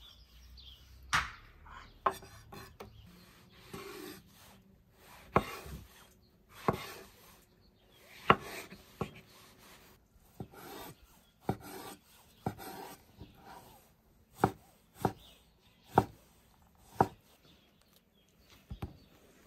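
Santoku kitchen knife cutting through firm food and knocking on a wooden cutting board: a series of sharp chops, irregular at first, then about one a second over the last few seconds.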